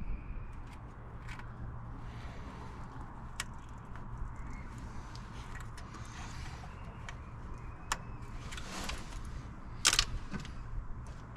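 Hand tools clicking, tapping and scraping against metal engine parts as a stuck coolant bypass hose is worked loose, with a sharper knock near the end, over a steady low hum.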